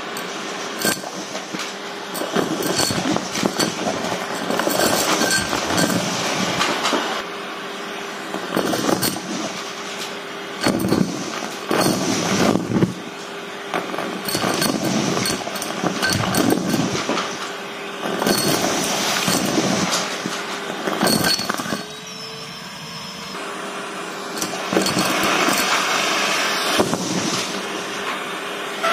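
Vacuum cleaner sucking through a bare metal wand, with a steady suction rush and hum. It pulls up confetti, paper scraps, buttons, beads and coins, which clink and rattle as they strike and run up the metal tube.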